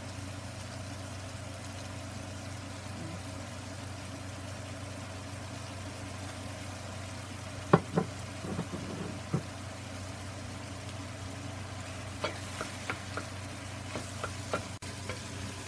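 Ground chicken frying gently in a nonstick skillet, wet with the juices it has released, over a steady low hum. A single sharp knock about eight seconds in is the loudest sound; near the end a wooden spoon stirs the meat with small clicks and scrapes against the pan.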